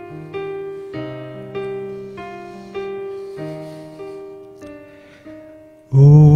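Digital piano playing a slow, gentle introduction, with notes and chords struck about every half second and each fading away. Just before the end, a man's solo voice comes in much louder, singing with vibrato.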